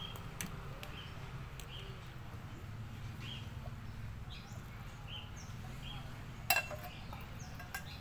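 Short bird chirps over a low steady hum, with a small click near the start and one sharp metallic clink about six and a half seconds in, the loudest sound, from the metal cooking pot and ladles as the noodles are tipped out.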